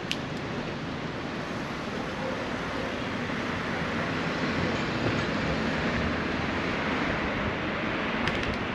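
Steady street noise heard from a moving bicycle: wind on the microphone mixed with the rumble of cars in slow city traffic, getting a little louder midway, with a few faint clicks near the end.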